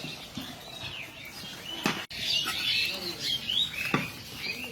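Birds chirping in short, high calls. Two sharp knocks come about two and four seconds in.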